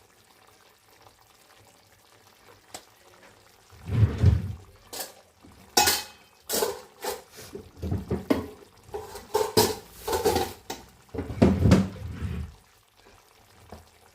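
Spoon scraping and knocking against a wok while spices are stirred into the chicken: after a few quiet seconds, an irregular run of clatters and scrapes lasting about eight seconds, then quiet again.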